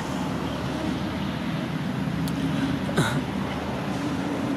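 A steady low engine hum, with one short sharp click about three seconds in.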